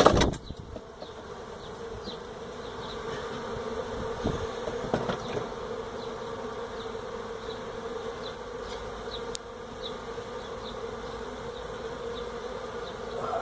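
A large colony of Africanized honey bees buzzing steadily in a dense, unbroken drone from its exposed hive. A loud knock comes right at the start, with a couple of softer knocks about four and five seconds in.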